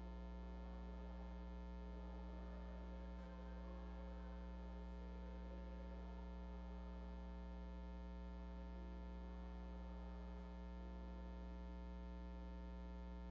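Steady electrical mains hum: a low, unchanging buzz with many overtones, over faint room noise.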